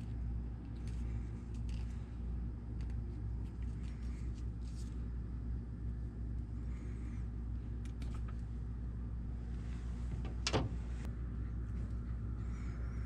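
Small clicks of hands working a thin wire and a crimp connector, with one sharp click near the end as crimping pliers are squeezed onto the connector. A steady low hum runs underneath.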